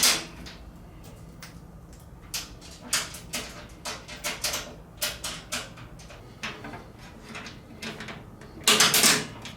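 Light metal clicks and clinks of bolts and nuts being fitted by hand into a steel tool cart's frame, scattered and irregular, with a louder clatter near the end.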